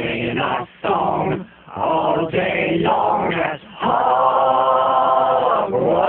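Several voices chanting and singing in a layered a cappella round of character names, in short phrases with brief gaps, ending on a long held note about four seconds in.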